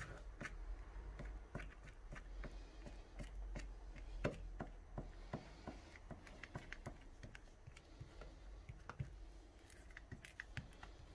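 Faint scraping and light clicking of a knife spreading a sour cream and mustard spread across a flour tortilla, the strokes tapping irregularly several times a second.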